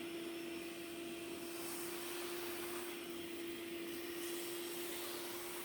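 Hoover OnePower cordless handheld vacuum running steadily: a constant motor hum with an airy hiss.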